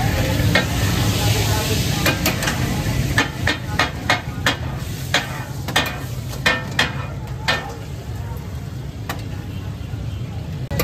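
Metal ladle knocking and scraping on a hot iron tawa as chopped fish katakat is stirred and mixed, in a string of irregular clacks that thin out after the middle, over a steady sizzle of frying.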